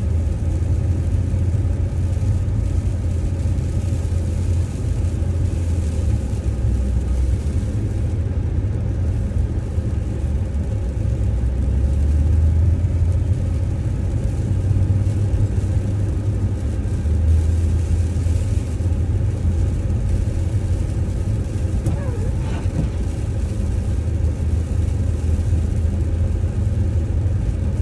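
Steady low rumble of a Chevrolet Tahoe's engine and drivetrain, heard from inside the cabin, as it drives slowly uphill through deep snow.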